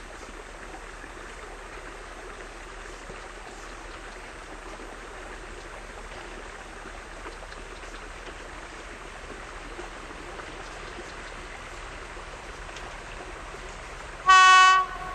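A steady background hiss, then near the end a single short, loud blast of a diesel locomotive's horn: one pitch with many overtones, lasting about half a second. The locomotive is the PKP SU45 heading the freight train.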